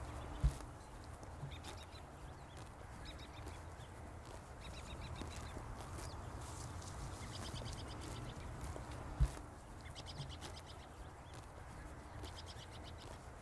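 Pasture ambience with a steady low rumble, small birds singing short high trills every couple of seconds, and two dull thumps, about half a second in and about nine seconds in.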